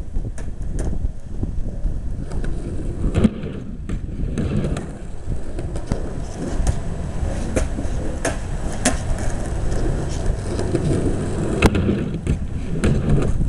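Skateboard wheels rolling on concrete with a steady low rumble, broken by sharp clacks throughout. The loudest clack comes near the end as the board rides onto a plywood launch ramp.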